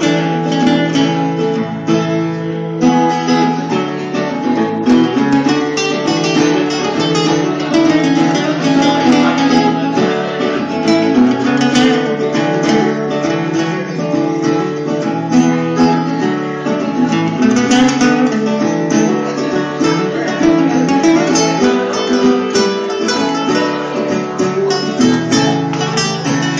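Two acoustic guitars, one a nylon-string classical guitar, playing an instrumental passage together with no singing.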